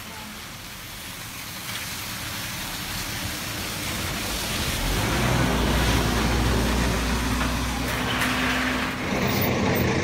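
A diesel coach coming along a wet road in the rain and passing: the hiss of tyres on wet asphalt grows louder, and the engine's low drone is strongest from about halfway through.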